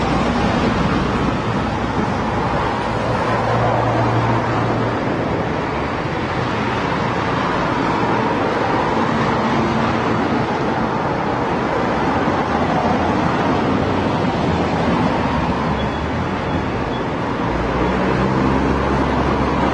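Steady road traffic: a continuous wash of engine and tyre noise from passing vehicles, with low engine hums that swell and fade as vehicles go by.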